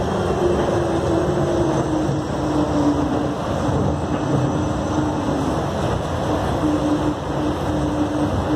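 Interior running noise of the DFW Skylink automated people mover (a rubber-tyred Bombardier Innovia APM 200) travelling along its guideway: a steady rumble and hiss with an electric drive whine. The whine dips slightly in pitch early on, then holds level.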